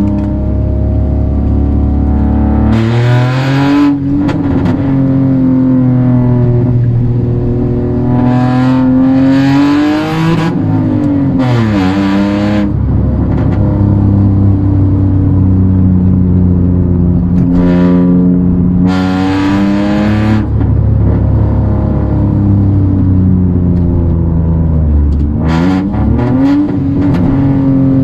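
Toyota Aygo's 1.0-litre three-cylinder petrol engine and exhaust heard from inside the cabin while driving. The engine note holds steady, then rises in pitch several times under acceleration and drops back after each rise.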